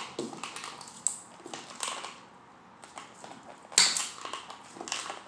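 Dog nail clippers snapping through a dog's long toenails: a few sharp crunching cuts about a second apart, the loudest about four seconds in.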